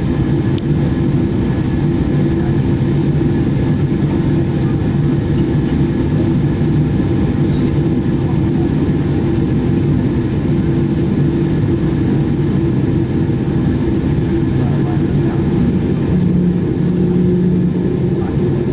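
Steady, loud drone of an airliner: a low rumble with a few steady tones held through the whole stretch.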